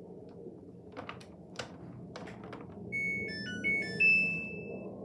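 Samsung washing machine control panel: a few clicks of buttons being pressed, then the machine plays a short electronic chime tune of several beeping notes, the last one held longest.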